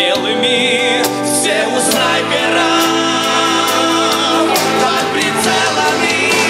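Men singing a song together in a recording studio, with instrumental backing.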